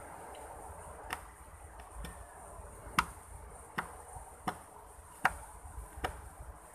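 Kitchen knife chopping chili on a wooden table: about seven sharp chops at uneven intervals, the loudest about three seconds in.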